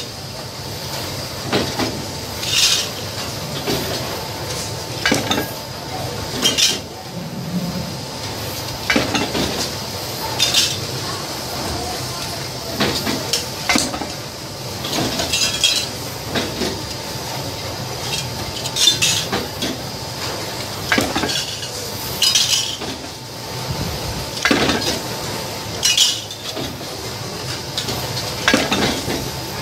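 Sheets of galvanized steel clanking, with a sharp ringing metal clink about every second and a half, as the plates are handled and worked in a bending press die. A faint steady hum runs underneath.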